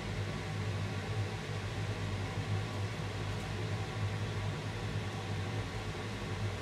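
Steady low hum with an even hiss, the unchanging drone of a running fan or motor, with a short sharp click at the very end.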